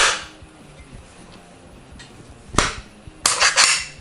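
Hard clicks and clacks from handling an airsoft AK-74 replica as its folding stock is worked to spring it open: one sharp click at the start, another about two and a half seconds in, then a quick run of clacks.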